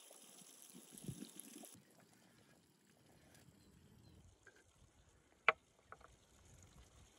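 Quiet outdoor background with a faint hiss in the first couple of seconds, and one short sharp tap about five and a half seconds in.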